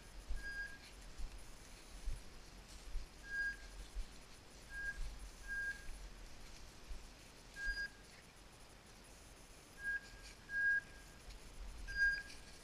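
Short, flat, whistle-like beeps at one high pitch, about eight spaced irregularly, over low thumps of wind buffeting and footsteps while walking through dry grass.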